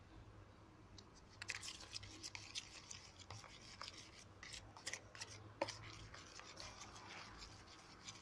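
Metal spoon scraping and clicking against a plastic tub, stirring thick dish soap and baking soda into a paste. Irregular scrapes start about a second and a half in and keep going in uneven strokes.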